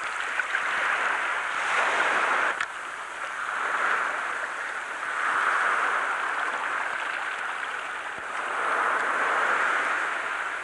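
Surf breaking on the shore: a steady rushing wash that swells and falls several times.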